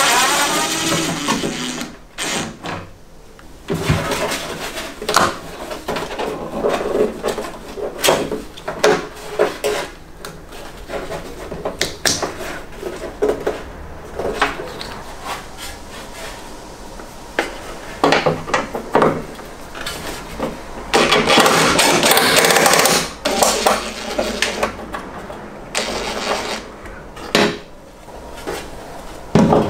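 Hand-tool work on a car's front end: irregular clicks, taps and metallic knocks of tools and trim being handled, with one louder rasping stretch of about two seconds about two-thirds of the way through.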